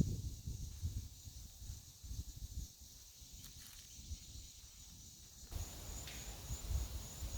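Steady high-pitched trill of insects, with an uneven low rumble of wind that picks up and turns into a wider hiss a little over five seconds in.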